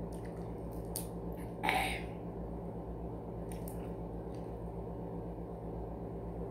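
A cooked shrimp being peeled by hand: a few small clicks and a brief squishy crackle of shell, the loudest just under two seconds in, over a steady low hum.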